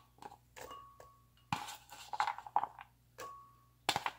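Chopped raw beet pieces dropping from a bowl into a glass blender jar onto cut apple: a run of soft knocks and clinks, a few followed by a short ringing of the glass.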